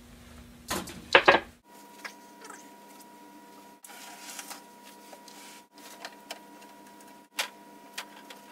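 Clunks of a camera being handled and set down, loudest about a second in. Then light clicks and knocks of hands working on a rear-projection TV cabinet and its perforated back panel, which break off abruptly several times.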